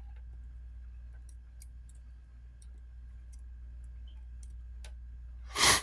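Small tools clicking and ticking against a smartphone's internal plastic parts as a piece is pried at, scattered faint clicks over a steady low hum. Near the end comes one short, loud burst of noise.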